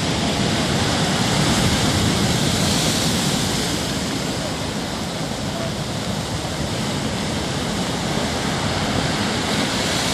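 Storm waves breaking against a concrete seawall: a steady rushing of surf and foam, swelling a little about two seconds in.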